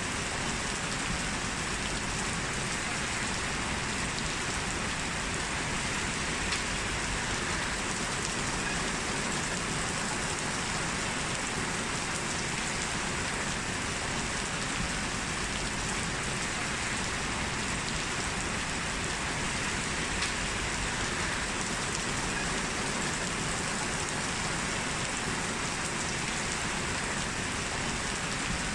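Heavy rain falling steadily, a dense even hiss of drops on hard surfaces.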